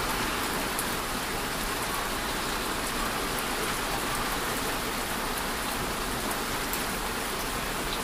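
Steady, even hiss with no distinct events.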